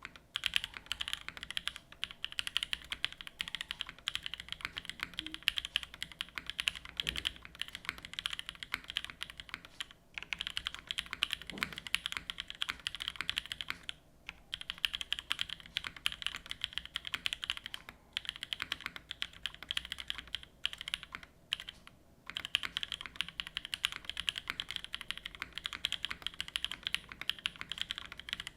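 Continuous fast typing on a Matrix 2.0 Add mechanical keyboard: unlubed NovelKeys Cream linear switches with stock springs on an aluminium plate, top-mounted, under GMK keycaps. A rapid, clacky stream of key strikes, broken by a few brief pauses.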